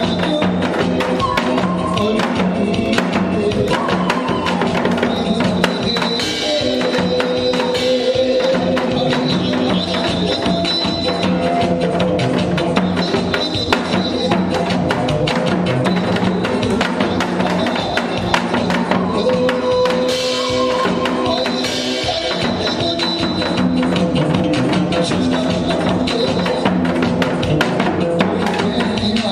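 Instrumental music with a steady drum beat.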